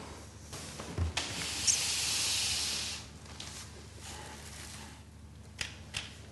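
A thump, then about two seconds of steady hissing rustle as dry straw packing in a gift box is rummaged through. Two sharp clicks near the end as a telescopic fishing rod is drawn out and its sections extended.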